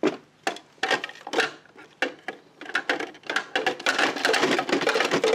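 Hard plastic toy trucks and bins being handled: separate clicks and knocks at first, thickening into a dense clatter in the second half.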